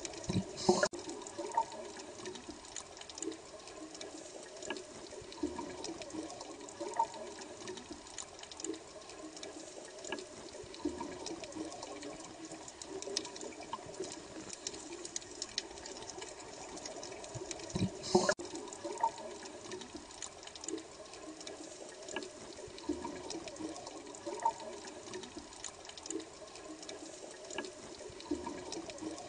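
Bubbling water running steadily with many small pops and gurgles, and two louder bursts of bubbles: one just under a second in and one about two-thirds of the way through.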